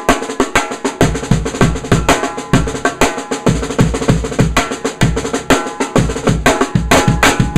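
13x7 ddrum Journeyman snare drum, tuned very high with snares on and no dampening, played in fast strokes and rolls with a bright, crisp crack. Low kick-drum thumps join about a second in, and the playing stops at the very end, leaving the drum ringing.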